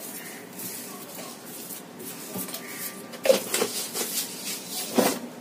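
A steel spoon spreading oil across a paratha on an upturned kadhai, scraping and rubbing over the bread, with two sharp knocks about three and five seconds in.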